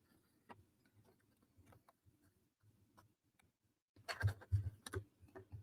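Thin wooden puzzle pieces clicking and knocking together as a piece is fitted into place. There is a faint single tap about half a second in, then a quick run of sharp clicks in the last second and a half.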